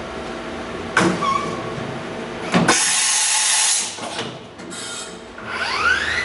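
Okuma MC-40VA vertical machining centre: two mechanical clunks, a loud hiss of air for about a second, then the spindle spinning up with a rising whine near the end as it is brought to speed.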